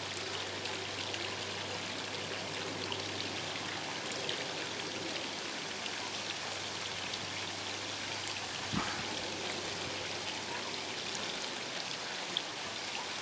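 Steady splashing of running water: a lawn sprinkler spraying droplets onto the grass together with a garden pond's rock waterfall. A soft knock about nine seconds in.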